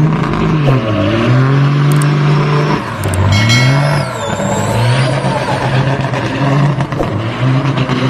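Diesel semi-truck engine revving repeatedly, its pitch sagging and climbing again several times. It is fuelled hard enough to blow thick black smoke from its exhaust stacks.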